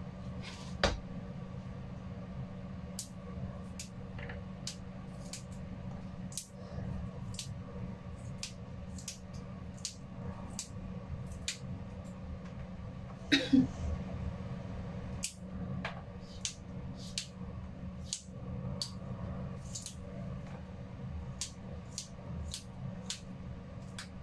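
Yardlong beans being snapped into short pieces by hand, a crisp snap every half second to a second, over a steady low hum. A louder knock comes about halfway through.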